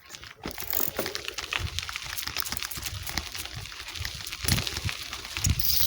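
Bicycle rolling over a rough, rocky dirt trail: tyres crunching on gravel, with many small rattles and knocks from the bike.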